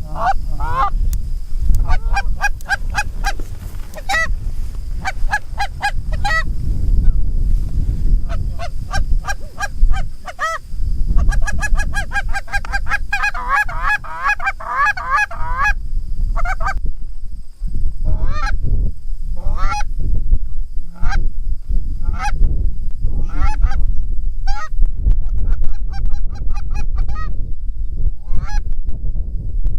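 Canada goose honks and clucks, coming one after another and thickest in a rapid run about halfway through, over a steady low rumble of strong wind on the microphone.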